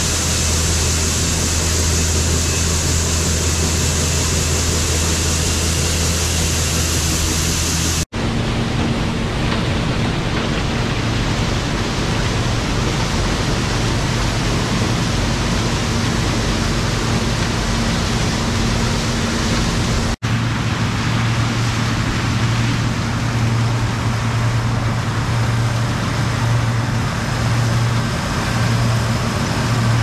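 John Deere combine harvesters running steadily in corn, in three takes joined by abrupt cuts about eight and twenty seconds in. In the first take a Turbo 7720 unloads shelled corn through its auger into a grain wagon, a low engine hum under a bright steady hiss.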